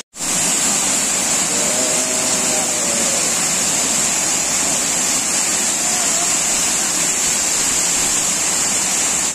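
Bakthang Falls, a waterfall, rushing: a loud, steady hiss of falling water that does not rise or fall. Faint voices sit underneath it about two seconds in.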